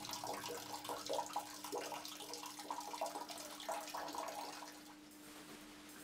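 A man urinating into a toilet bowl, the stream splattering into the water and tailing off about five seconds in.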